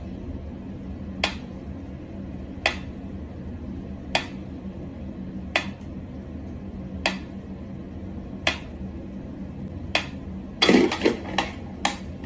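Wind-up pyramid metronome ticking slowly with its swinging pendulum, about one sharp tick every second and a half. Near the end comes a quick clatter of several louder knocks.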